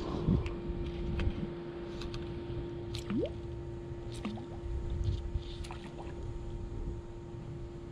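Fly line being stripped in by hand in short pulls during a topwater gurgler retrieve, with scattered light clicks and scuffs of line and rod handling. A steady low hum and a low rumble run underneath.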